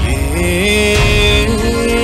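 Lounge music with a steady low bass beat. A melody line slides up and then holds a long note.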